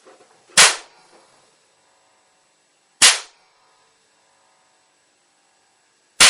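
Three sharp, loud bangs about two and a half seconds apart: high-current discharges arcing across a spark plug's gap.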